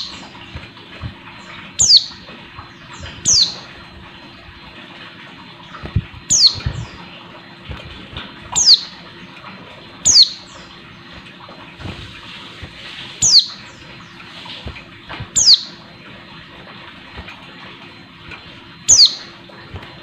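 Female white-eye (pleci) calling: short, high chirps, each sweeping sharply down in pitch, repeated about nine times at uneven gaps of one and a half to three and a half seconds. It is a female's call to males, used to rouse male birds to sing.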